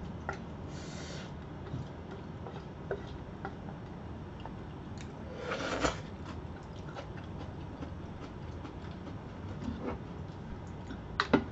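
Quiet eating sounds: small clicks of chopsticks against ceramic bowls and, about halfway, a short slurp of black bean noodles (jjajangmyeon) eaten straight from the bowl, over a steady low hum.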